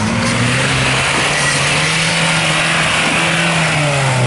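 Off-road buggy's engine held at high revs under load, its pitch climbing slightly and easing off near the end, over the hiss of tyres churning through loose dirt.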